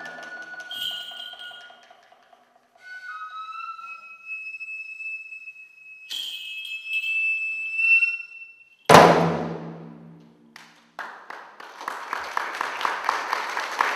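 Close of an improvised gagaku piece: a high wind instrument holds long notes that rise slightly, then a single loud stroke on a large barrel drum rings out about nine seconds in. Applause begins about two seconds later and carries on.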